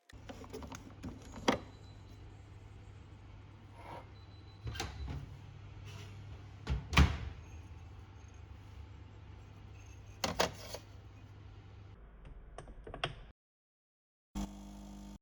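Sharp clicks and knocks, the loudest about seven seconds in, from parts of an espresso machine being handled and fitted, over a steady low hum that stops about twelve seconds in.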